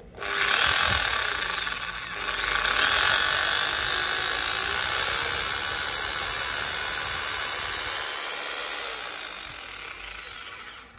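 Small corded Maktec electric drill with a 6 mm chuck, run on its variable-speed trigger. The motor starts abruptly and speeds up, dips briefly about two seconds in, then rises again and runs steadily. It slows and winds down near the end.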